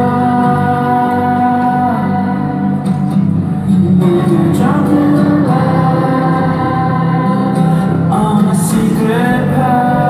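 A large choir of children and adults singing together in long held notes, with new phrases starting about four seconds in and again near the end.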